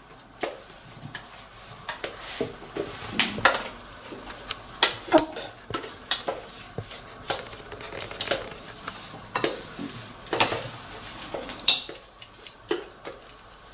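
A stainless-steel food-processor jug held upside down and knocked and shaken over a plastic bowl to empty out minced sausage meat and bread: irregular knocks and clinks of metal against plastic, the loudest about five seconds in and again near ten seconds.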